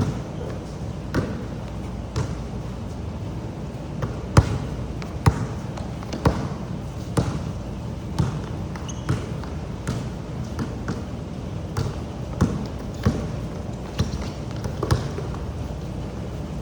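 Pouring rain as a steady hiss, with a sharp knock about once a second throughout.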